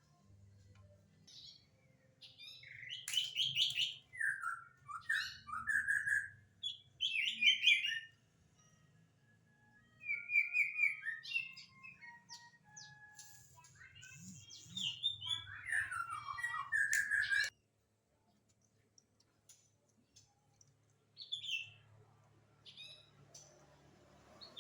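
A songbird singing in quick, varied chirps and whistled notes, in dense phrases that stop abruptly about two-thirds of the way through, followed by a few scattered chirps near the end. A faint low hum runs underneath.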